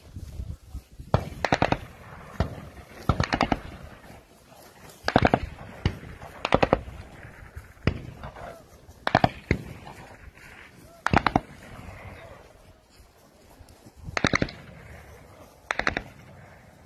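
Military rifle fire: about a dozen sharp shots and short rapid strings of shots at irregular intervals from soldiers advancing on foot.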